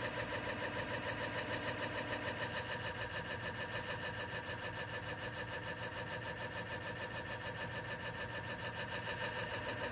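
Serdi valve seat machine's multi-angle cutter spinning and cutting an intake valve seat in an aluminum cylinder head: a steady machine hum with several constant tones and a fast, even pulsing, a little louder for a couple of seconds near the start. The cutter is taking nearly its whole face width, a cut prone to chatter.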